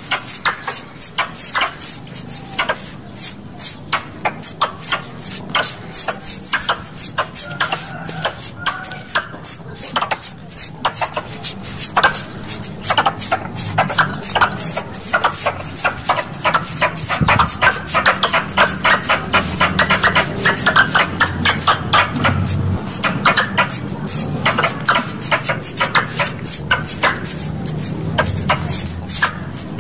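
Squirrel calls played as a lure for pest squirrels: rapid, high-pitched chattering chips, each a short downward-sweeping note, repeated about four times a second without a break.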